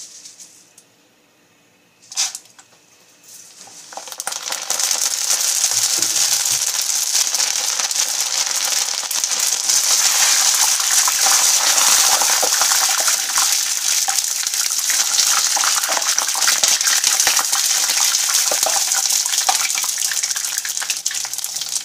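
Macaroni deep-frying in hot oil in a pan: a loud, dense sizzle and crackle that starts about four seconds in and holds steady. A single sharp knock comes about two seconds in.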